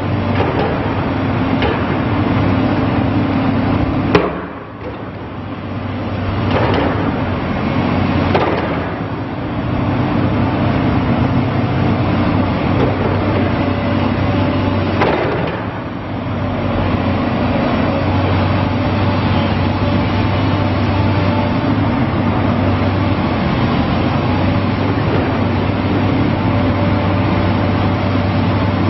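Volvo EC210BLC hydraulic excavator's diesel engine running steadily, its note dipping and swelling as the machine is worked. There is a sharp knock about four seconds in, and a faint high whine at times.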